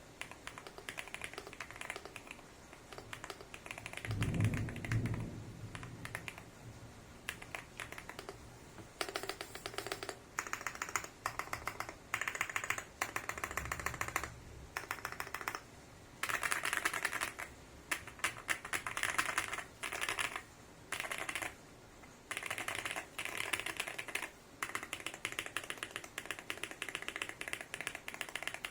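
Fast typing on a Weikav Stars 75 aluminium-cased mechanical keyboard fitted with KTT Rouge POM linear switches and thick PBT Cherry-profile keycaps: rapid runs of key clacks in short bursts with brief pauses. A low thud comes about four seconds in.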